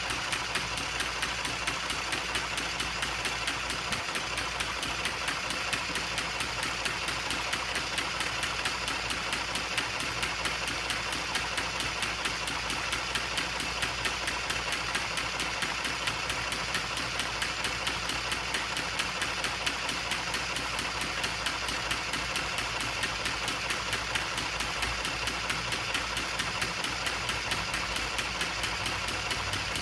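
A machine running steadily, a constant hum and hiss with a fast, even pulsing.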